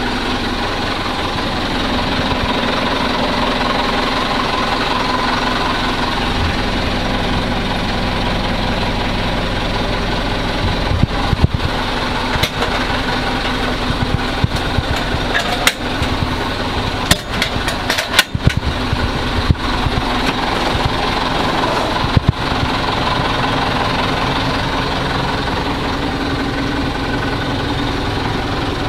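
Mitsubishi Fuso Canter truck's engine idling steadily, heard from inside the cab, with a scattering of sharp clicks and knocks in the middle.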